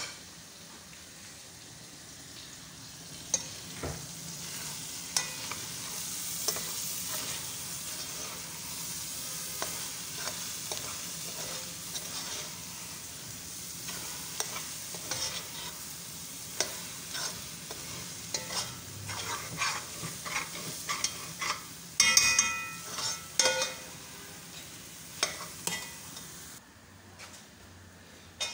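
A metal spoon stirring and scraping thick egusi (ground melon seed) frying in tomato paste in an aluminium pot, over a steady sizzle. A louder run of scrapes and clinks comes about 22 seconds in, and the sizzle drops away near the end.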